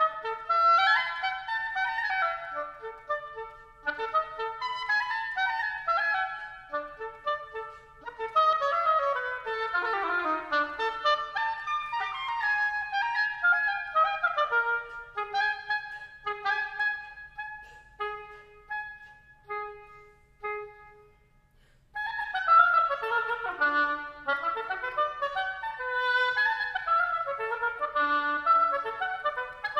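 Unaccompanied solo clarinet playing a classical piece: a single melodic line of short phrases and quick runs up and down. The playing breaks off briefly about two-thirds of the way through, then resumes with rapid rising and falling runs.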